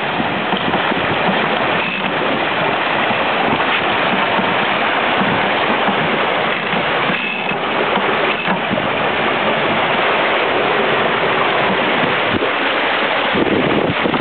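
Water rushing and hissing along the hull of a Mini 6.50 carbon sailboat sailing fast, at about ten knots, a loud steady wash of spray and wake.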